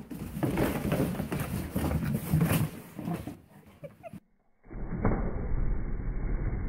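Plastic play balls clattering and rustling as a corgi steps into a ball pit and roots through them. The sound cuts out briefly about four seconds in, then a duller, muffled rustling follows.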